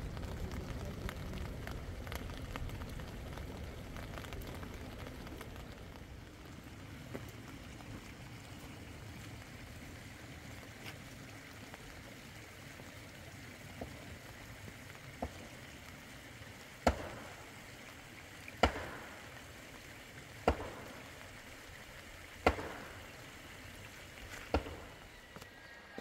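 Steady hiss of falling rain, then five sharp knocks about two seconds apart, each with a short ringing tail.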